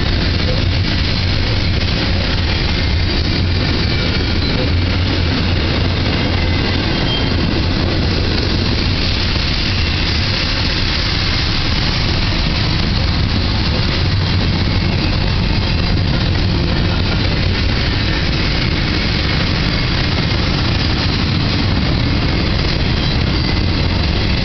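CSX double-stack intermodal freight cars rolling past on the rails: a loud, steady rumble of wheels and cars that holds without a break.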